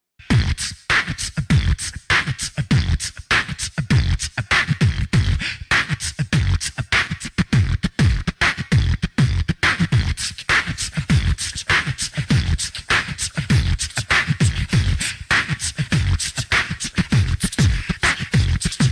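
Music: a beatboxed vocal-percussion beat, with deep kicks that drop in pitch and sharp snare hits in a steady rhythm.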